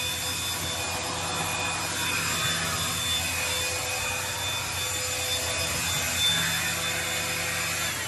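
Bissell Pet Hair Eraser cordless lithium-ion handheld vacuum running steadily, a whining motor over rushing airflow. It winds down with a falling pitch near the end as it is switched off.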